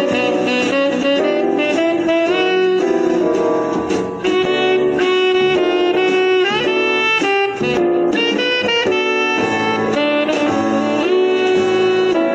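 Background instrumental music with a lead melody over accompaniment.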